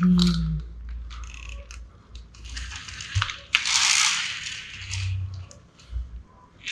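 Plastic toys being handled and pushed along a hard floor: scattered light clicks and rattles, with a louder rustling scrape a little after halfway.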